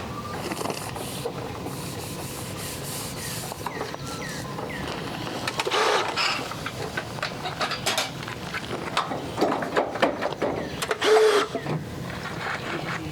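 Seamless gutter roll-forming machine running with a steady mechanical whir, with scattered clicks and metallic knocks over the second half.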